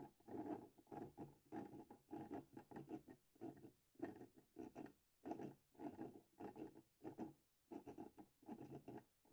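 Quarter-scale 3D-printed PLA crankshaft turned by hand in its 3D-printed V8 engine block. The plastic scrapes and rattles against plastic in short, quiet bursts, about three every two seconds.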